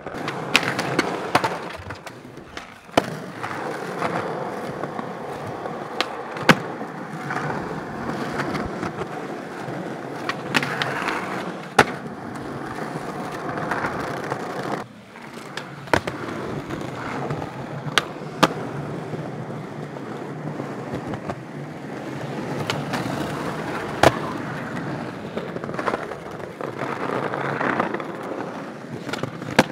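Skateboard wheels rolling over rough street pavement and sidewalk bricks, broken by about eight sharp clacks of the board striking the ground as the skaters pop and land tricks.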